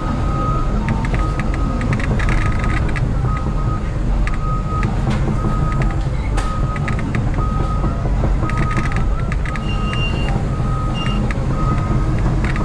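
Caterpillar excavator's diesel engine running steadily under load while its grapple pushes through brush, with a repeating high beep from the machine and scattered crackles and snaps of breaking branches.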